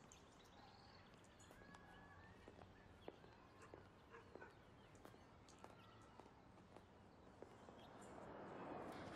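Near silence: faint outdoor ambience with scattered soft ticks and a hiss that swells slightly near the end.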